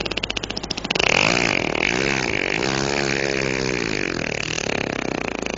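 A man imitating, with his mouth, a motorcycle engine on a last try to start it: a rapid sputter for about a second, then a revving note that rises and falls in pitch, breaking back into sputtering near the end as the jammed engine fails to catch.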